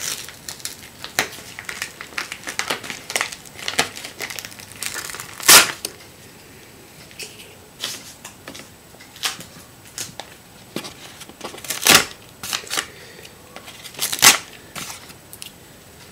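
Packaging of a memory card being torn open and crinkled: irregular crackling and rustling, with a few louder sharp cracks about five, twelve and fourteen seconds in.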